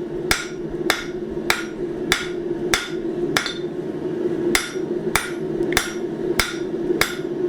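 Hand hammer striking hot round bar stock on an anvil in a steady rhythm, a little under two blows a second, with one short pause midway. These are forging blows flattening the round bar into flats so it won't roll.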